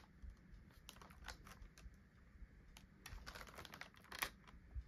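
Faint, scattered light clicks and crinkles of plastic blind-bag packets being handled, a few more of them in the last second or two.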